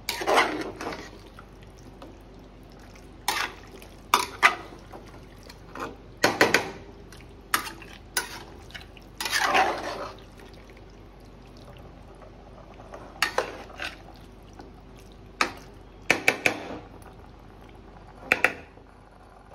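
A utensil knocking and scraping against a cooking pot in irregular bursts: about ten sharp clatters, with two longer scrapes, one at the start and one about halfway through.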